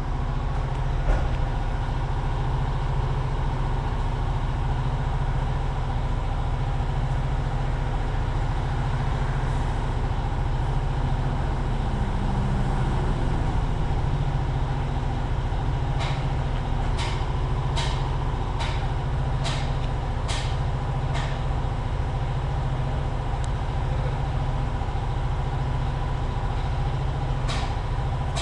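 Compressor running with a steady low hum and a faint whine. Partway through, a series of about seven sharp ticks comes roughly once a second, and a few more come near the end.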